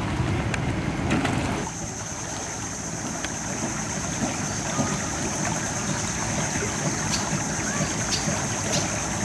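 Steady outdoor noise of a boat out on the lagoon's water. About two seconds in it drops a little and a steady high-pitched whine joins it, with a few faint ticks.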